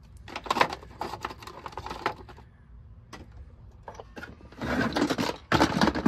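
Metal hand tools and small fittings rattling and clacking in a hard plastic Milwaukee Packout organizer case as it is handled and clipped onto the Packout stack. There are two bouts of clatter, the louder one near the end.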